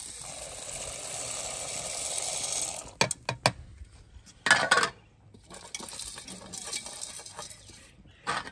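Dry split lentils (dal) poured from a steel bowl into a pot of water, a steady rushing pour lasting about three seconds. Then several clinks and one loud clank of the steel bowl and lid against the aluminium pot, a quieter steady hiss, and a couple more clinks near the end.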